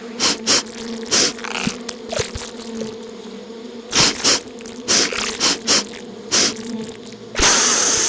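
Swarm of bees buzzing, a steady droning hum, with short sharp clicks scattered through it and a loud hissing burst near the end.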